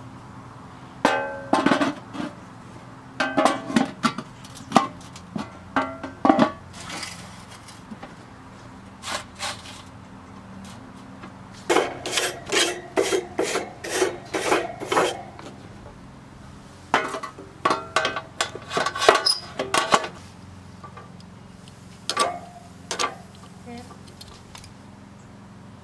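Metal tongs clinking and scraping against the steel cooking grate of a Weber Go Anywhere charcoal grill, in several bursts of rattling clicks with short metallic rings.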